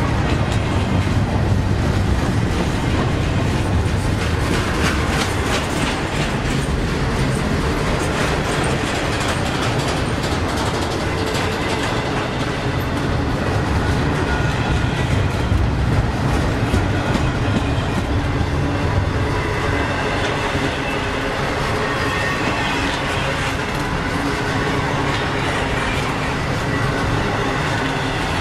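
Double-stack intermodal freight train's container-laden well cars rolling past: a steady rumble of wheels on rail, with a rapid clickety-clack of wheels crossing rail joints.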